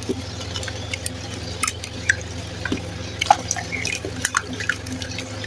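Clay being crumbled and squeezed by hand: irregular small crackles, clicks and little wet plops, several a second.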